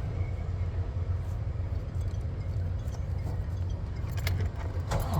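Steady low rumble of an idling diesel truck engine, with keys jangling at the ignition.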